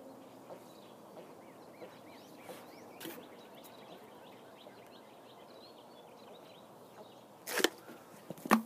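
A person chugging a bottle of carbonated water, with faint regular gulps about every two-thirds of a second. Two loud, sharp sounds come near the end, about a second apart. Birds chirp faintly in the background.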